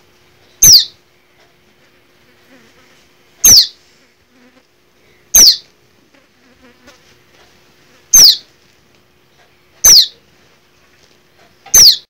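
A fledgling songbird calling: six short, loud, high peeps, each sliding downward in pitch, spaced about two to three seconds apart.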